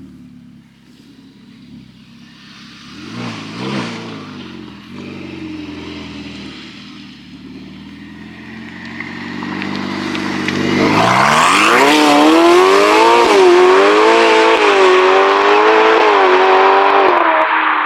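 A supercar engine running at low revs with a short blip about three seconds in, then revving hard about eleven seconds in. Its pitch climbs steeply and stays high and loud, rising and dipping, to the end.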